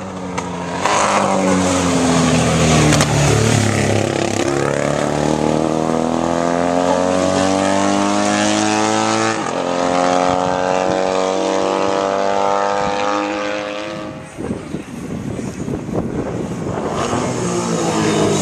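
Classic racing sidecar outfits' engines at full throttle. One passes close about a second in. The engine note then climbs through gear changes and fades about 14 s in, and another outfit closes in near the end.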